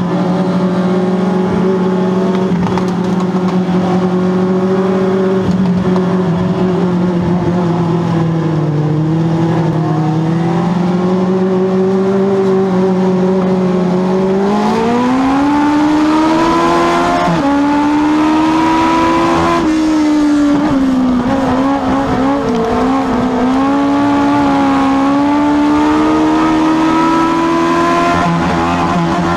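Legends race car engine heard from inside the cockpit, running at steady low revs, then climbing in pitch about halfway through. After the climb it holds higher revs, dips briefly, then picks up again.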